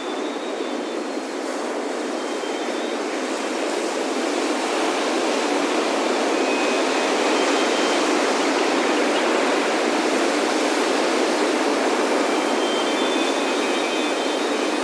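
Ocean surf rushing onto a beach, swelling gradually to a peak a few seconds in and easing slightly. Faint high wind chime tones ring near the start and again near the end.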